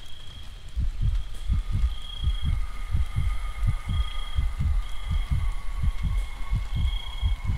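Low, regular heartbeat-like thumps, often in pairs, about two to three a second, fading in over the first second. Faint steady high-pitched tones sit over them, the highest one swelling now and then.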